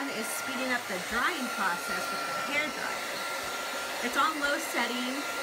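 Hand-held hair dryer blowing steadily on its cool setting, with a thin steady whine over the rush of air.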